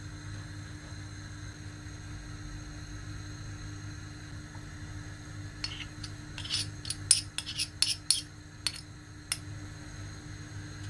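Metal spoon tapping and scraping against a small plastic bowl to knock minced garlic off into the pot: a quick, uneven run of about a dozen sharp clinks starting about halfway through and lasting some four seconds, over a steady low hum.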